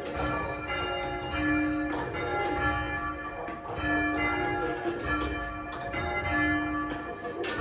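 A ring of church bells rung full circle by a band of ringers, the bells striking one after another in quick succession, each ringing on under the next. The bells run from a heavy tenor of about half a ton down to a small treble.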